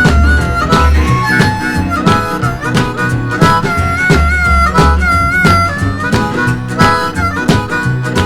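Background music: the instrumental break of a blues-rock song, a wind instrument playing a wavering melody over guitar, bass and a steady shuffling beat.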